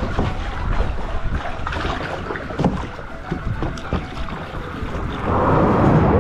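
Kayak paddle strokes splashing in the water, with wind on the microphone. About five seconds in, a passing train sets in suddenly as a louder, steady rumble that covers the paddling.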